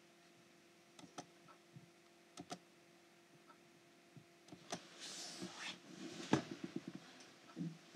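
Faint scattered clicks and taps. A rustle comes about five seconds in, then a sharper click and a quick run of small clicks just after six seconds.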